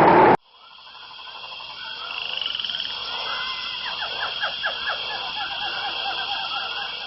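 A loud rushing noise cuts off abruptly about half a second in, giving way to a chorus of frogs calling: a steady high trill underneath, and short repeated calls that come thickest in the middle.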